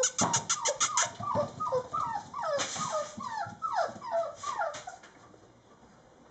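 Four-and-a-half-week-old mastiff puppies whining in short cries that fall in pitch, several a second, stopping about five seconds in. A fast run of sharp clicks comes through the first second.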